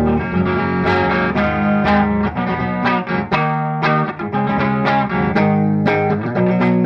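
Instrumental guitar music: a run of plucked notes over sustained low notes.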